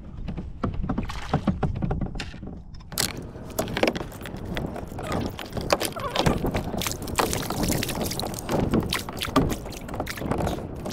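Water splashing and knocking beside a kayak as a walleye is brought alongside and scooped into a rubber-mesh landing net. The first few seconds are quieter; after that come a dense run of irregular splashes and knocks from the fish, the net and gear handling.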